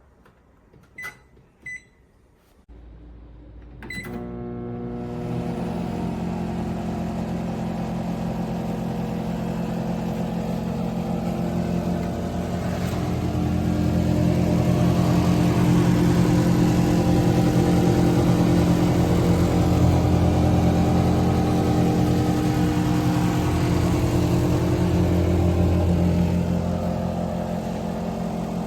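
Microwave oven keypad beeping twice as it is set, then the oven switching on with a click and running: a steady low electrical hum with fan noise, louder from about halfway through.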